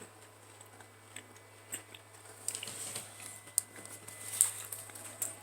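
Person chewing a crisp chocolate-covered wafer bar (a Red Velvet Kit Kat), with irregular crunches and small clicks that grow busier about halfway through.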